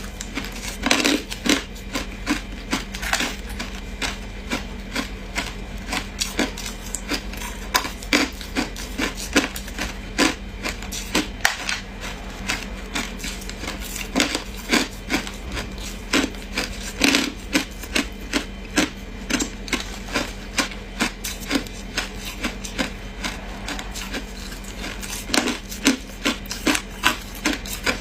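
Ice being bitten and chewed: a steady run of sharp crunches, several a second.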